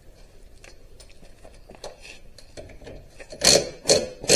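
Hand tools being handled during a socket search: light clicks and small knocks, then two loud short clatters near the end.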